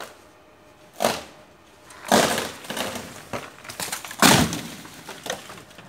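A large tree branch breaking off and falling: one sharp crack, then a long crash of splitting wood and snapping leafy twigs, and about two seconds later a second, louder crash as the limb comes down through the foliage below.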